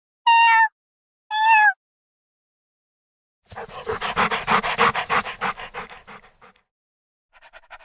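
A dog gives two short, high whines, then pants rapidly in quick breaths for about three seconds.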